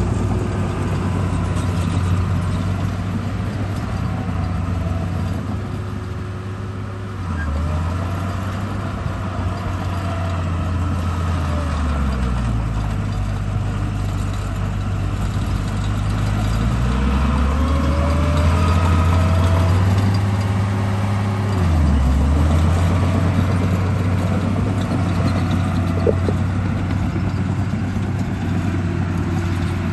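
A steady, low engine drone, its pitch dipping and climbing back four times, about every five seconds, with a fainter higher whine gliding along with it.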